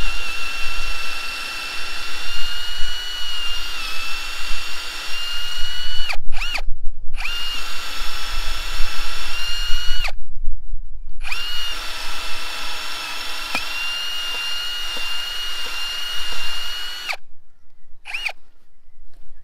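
A RYOBI One+ 18V cordless power tool whines steadily in three long runs with short pauses, as holes are drilled through pine trellis posts for the wires. The pitch dips slightly under load. Two brief trigger blips come in the gaps.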